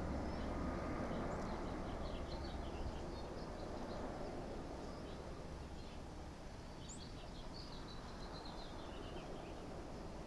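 Large helicopter's rotor and engine noise, a low rumble fading steadily as it flies away, with birds chirping now and then.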